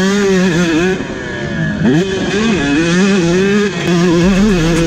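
A freshly rebuilt KTM 150 SX's two-stroke single-cylinder engine revving on and off the throttle while being ridden. Its pitch rises and falls continually, dipping about a second in and climbing sharply again near two seconds.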